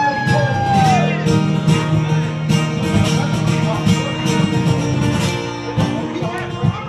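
Acoustic guitar played solo in a fast fingerpicked instrumental passage: a steady picked bass line under quick treble notes.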